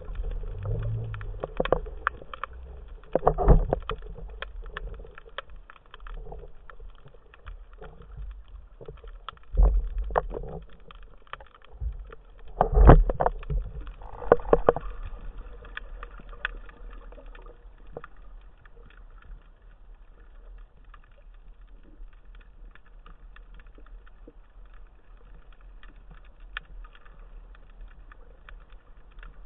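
Underwater sound picked up by a speargun-mounted camera in its housing: muffled water movement and low rumble with scattered clicks and knocks. Heavier thumps come about 3.5, 10 and 13 seconds in, and it is quieter in the second half.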